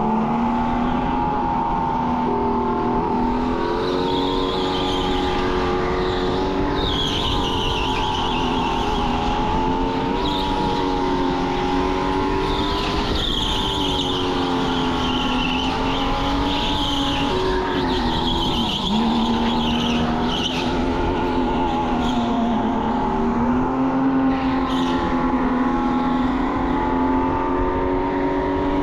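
Electric go-kart racing: the kart's motor whine rising and falling with speed, and the tyres squealing through the corners several times.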